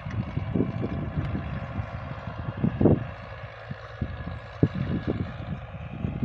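Wind buffeting the phone's microphone: an uneven low rumble with gusts, the strongest about three seconds in and again near the five-second mark.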